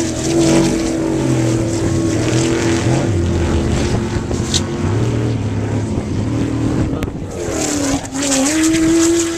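Off-road race vehicle engines running hard at high revs, holding a steady pitch, then dipping and climbing again near the end.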